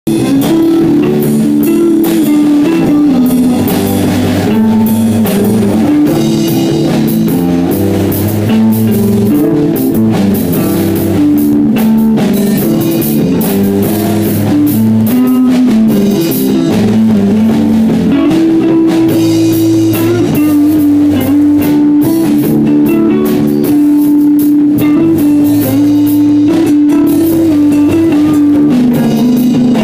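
A live rock band jamming without vocals: electric bass, guitar and drum kit playing together, loud and steady, with a repeating bass line under the drums and cymbals.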